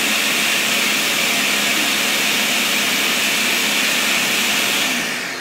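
Ninja CT661V Smart Screen Duo countertop blender running steadily on its ice cream program, blending ice cream and milk. The motor winds down near the end as the program finishes.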